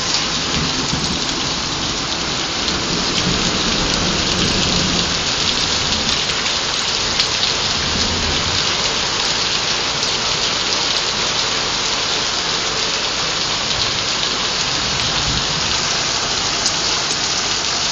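Heavy rain pouring steadily during a thunderstorm, with a low rumble of thunder in the first few seconds.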